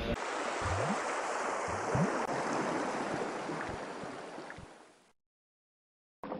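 A steady rushing noise, like surf, with a couple of faint low swells; it fades away about five seconds in and cuts to dead silence for about a second. A duller hiss then starts near the end.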